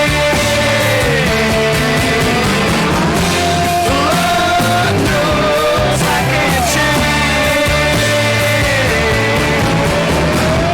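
Rock music: sustained electric guitar lines that slide and bend in pitch, over a full band with bass and drums.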